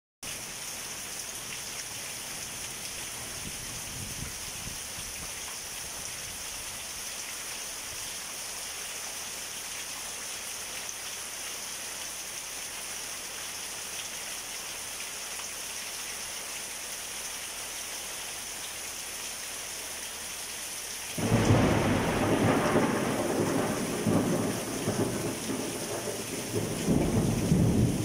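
Steady hiss of heavy rain, then about three-quarters of the way through a loud crack of thunder breaks out and rumbles on, swelling again near the end.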